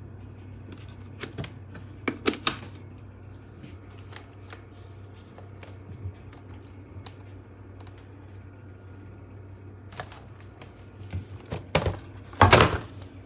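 Scattered plastic clicks and knocks from a cordless stick vacuum being handled, switched off, over a faint steady low hum. A few clicks come a couple of seconds in, and the loudest cluster of knocks comes near the end.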